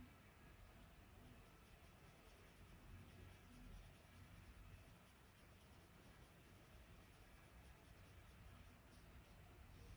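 Faint scratching of a Prismacolor Premier coloured pencil shading on heavy white drawing paper.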